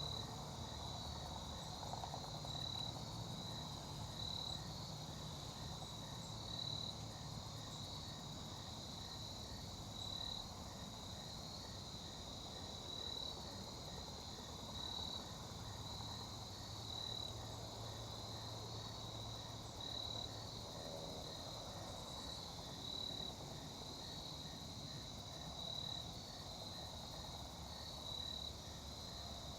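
Crickets chirping in a steady high chorus, their pulsed chirps repeating evenly and overlapping.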